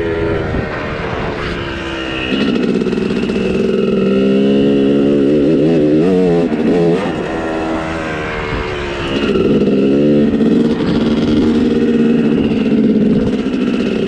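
Dirt bike engine running. It gets louder about two seconds in, wavers up and down in pitch around six to seven seconds, eases off near eight seconds and picks up again about nine seconds in.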